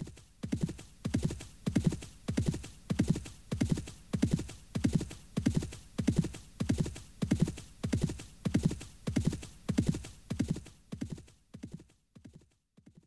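A horse trotting: steady hoofbeats in an even rhythm of about two strides a second, fading out near the end.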